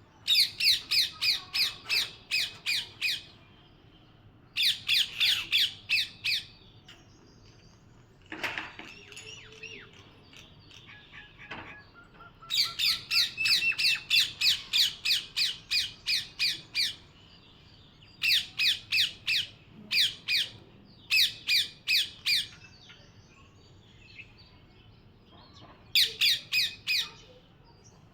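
Parrot squawking in bouts of harsh, evenly repeated calls, about three a second, with short pauses between the bouts.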